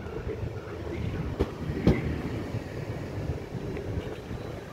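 NordWestBahn ET 440 (Alstom Coradia Continental) electric multiple unit rolling past along the platform: a steady low rumble of wheels on rail. A few sharp knocks of the wheels crossing rail joints come through, two close together about a second and a half and two seconds in.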